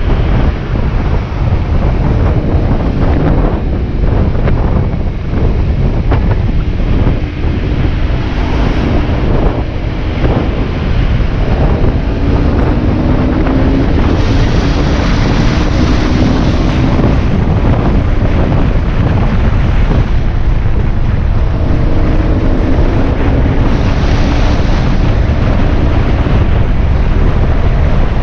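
Heavy wind buffeting on the microphone of a moving motorbike, with the bike's engine note faintly rising and falling underneath as it speeds up and eases off.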